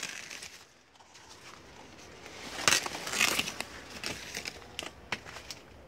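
Sugarcane leaves rustling and crackling as they are brushed, with a louder crackling burst about three seconds in.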